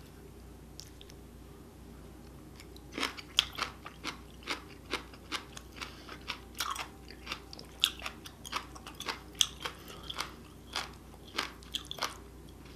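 Close-miked chewing of a mouthful of spicy stir-fried octopus with melted cheese: quiet for about the first three seconds, then a run of short chewing clicks and smacks, about two to three a second.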